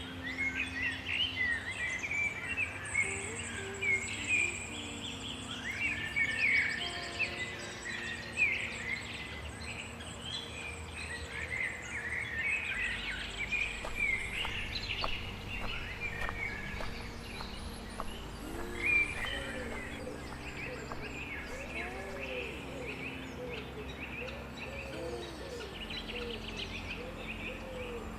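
A chorus of songbirds chirping and trilling, over soft, sustained ambient music.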